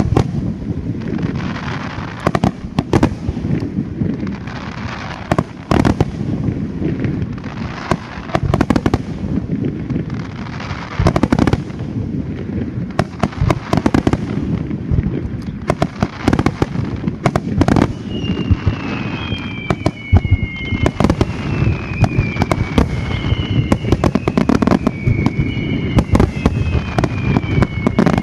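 Aerial firework shells bursting in rapid succession at a display finale: a dense barrage of sharp bangs over a low rumble. From about two-thirds of the way through, several high whistles fall in pitch, one after another.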